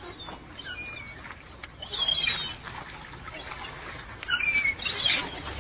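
Gulls calling: several short, pitch-gliding calls in a few clusters, louder about two seconds in and again near the end.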